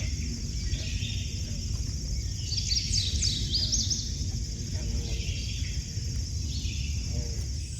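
Outdoor animal chorus: a steady high-pitched pulsing trill, with a burst of quick rising and falling chirps from about two and a half to four seconds in, over a constant low rumble.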